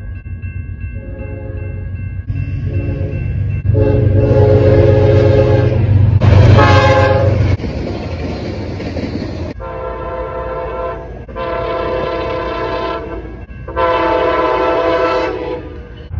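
Train horn sounding a string of chord blasts, about seven in all, the longest and loudest near the middle, over a steady low rumble of the train.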